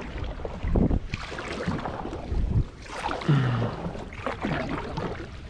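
Wind buffeting the microphone, with low thumps and water lapping against a fishing kayak's hull.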